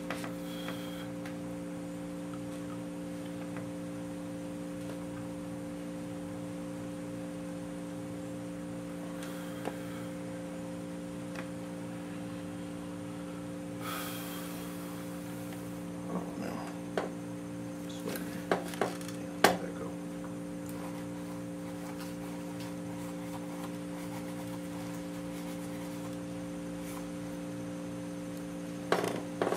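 Steady hum made of several held tones, with a short hiss about 14 seconds in and a few light clicks and knocks between about 16 and 20 seconds in.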